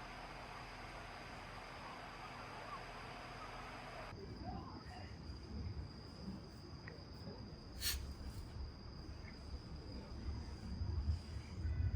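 Crickets giving a steady high-pitched trill, with a single sharp crack about eight seconds in. A background hiss drops away abruptly about four seconds in.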